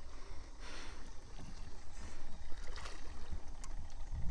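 Low rumble of wind on the microphone over faint water sounds as a hooked bass is played at the surface beside a small boat, with a few light clicks near the end.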